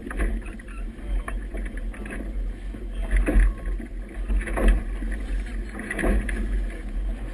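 Wind rumbling on the microphone of a camera mounted low on a boat, with choppy river water splashing against the hull; the louder splashes come about three, four and a half, and six seconds in.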